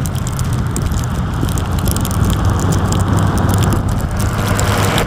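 Steady low rumble of street traffic with a hiss over it, a vehicle engine running nearby.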